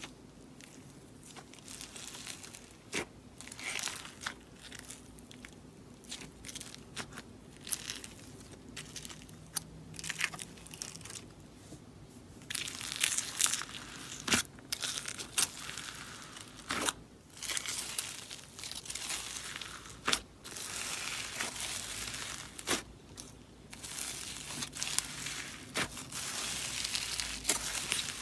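Slime being mixed with clay by hand: sticky crackling, tearing and popping, sparse at first and denser and louder from about halfway.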